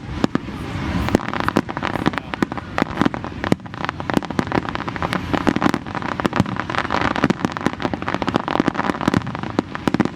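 Fireworks display going off in a dense, rapid string of bangs and crackles, many reports a second with no letup.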